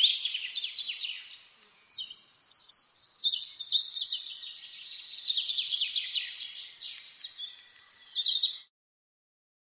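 A songbird singing rapid, high trills and twittering phrases, with a short pause about two seconds in. The song cuts off suddenly near the end.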